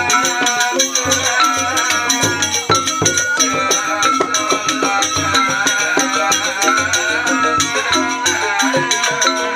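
A Balinese rindik ensemble playing a fast koplo-style piece: bamboo xylophones struck in rapid runs over kendang and bongo drum beats and cymbal, with bamboo suling flutes holding longer notes.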